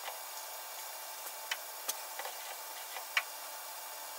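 Scattered light metallic clicks, about seven of them at irregular intervals, from a tap held in a mill-drill's spindle being turned by hand to start threads straight in drilled holes, over a steady faint hiss.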